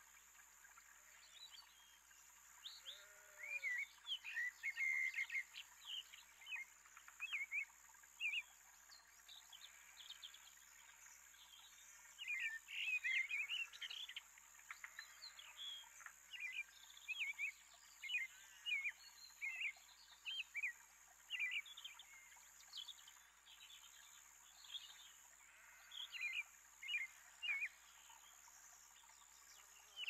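Small songbirds chirping and calling around a backyard feeder: many short, sharp chirps and quick chip notes in irregular clusters, over a faint steady high hiss.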